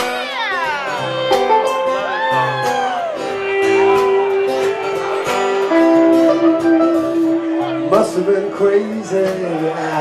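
A live country-rock band playing an instrumental break, with acoustic guitar strumming, upright bass and drums. Over it a harmonica plays the lead, with sliding notes at the start and long held notes later.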